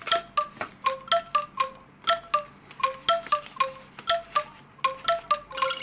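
Background music: a melody of struck bell-like chime notes, about three or four a second, each ringing briefly and stepping up and down between a few pitches.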